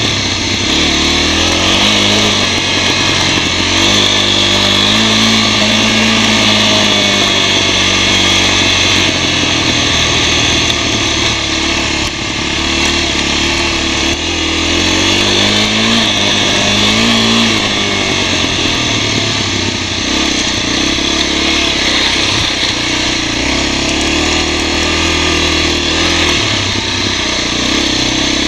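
Honda NX250's single-cylinder four-stroke engine running as the motorcycle is ridden, its pitch rising and falling with the throttle a few times, over a steady rushing hiss of wind and tyres on the dirt.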